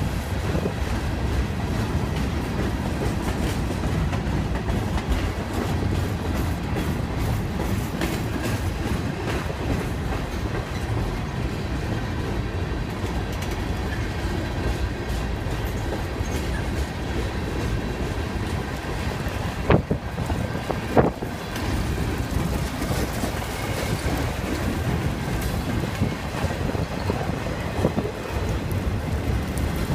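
BNSF mixed freight train's boxcars, covered hoppers and tank cars rolling steadily past, with a low rumble and clatter of steel wheels on the rails. Two sharp knocks stand out about two-thirds of the way through, a second apart.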